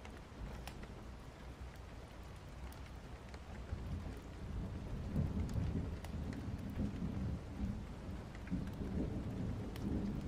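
Rain falling steadily with scattered drop ticks, as a thunderstorm ambience. About four seconds in, a low rumble of thunder swells and rolls on under the rain.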